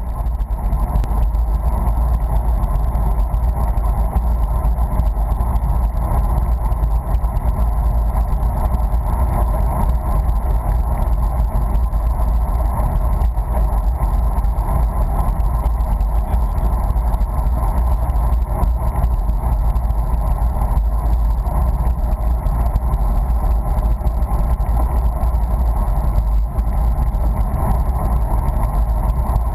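Steady wind and road noise from riding a bicycle at speed: a constant deep rumble of wind on the microphone with a hiss of tyres on the road.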